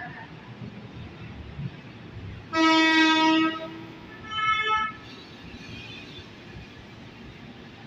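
Electric commuter train's horn sounding twice: a loud blast of about a second, then a shorter, higher-pitched one.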